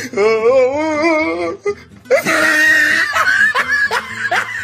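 Comic music and sound effects with laughter: a wavering, quavering held tone for about a second and a half, then, after a short break, a burst of noise and a run of short laughing calls.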